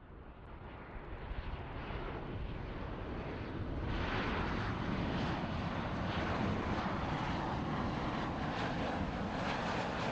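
Jet engines of a Boeing 737-800 airliner on final approach. The noise swells over about the first four seconds, then holds steady, with a faint low hum under the rushing noise.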